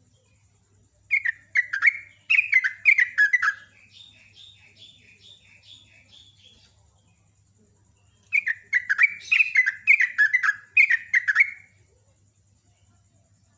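Yellow-vented bulbul (trucukan) singing. Two runs of quick, falling, bubbling notes come about a second in and again past the middle, with a softer string of higher chirps between them.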